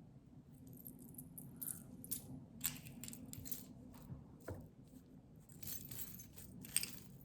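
Costume jewelry (necklace chains, charms and beads) clinking and jingling as pieces are handled, a scattered run of light metallic clicks.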